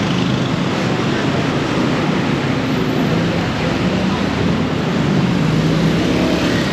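Busy street traffic: vehicle engines running under a steady, loud wash of road noise.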